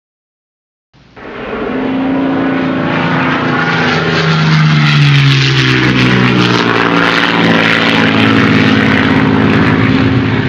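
Propeller airplane flying past. It fades in after about a second of silence, and its engine note drops in pitch midway as it passes.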